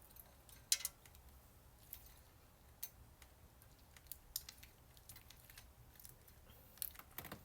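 Congee slime being handled and stretched: faint, sticky clicks and pops scattered through, with a sharper pop about three-quarters of a second in and a quick cluster near the end.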